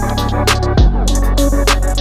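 Electronic hip-hop style background music with a drum-machine beat and heavy bass.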